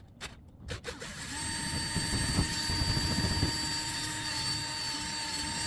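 A few sharp clicks, then a cordless drill running steadily with a 3/8 inch bit, enlarging a 1/4 inch hole, and stopping abruptly near the end.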